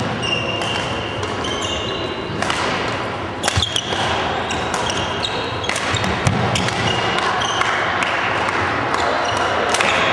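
Badminton rally on a wooden sports-hall court: sharp racket strikes on the shuttlecock and quick footsteps, with short high squeaks of shoes on the floor, all echoing in a large hall. A quick cluster of loud sharp hits comes about three and a half seconds in.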